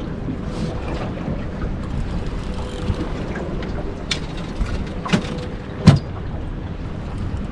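Wind buffeting the microphone over water around a small boat, a steady rumbling noise. Three sharp knocks come about four, five and six seconds in, the last the loudest.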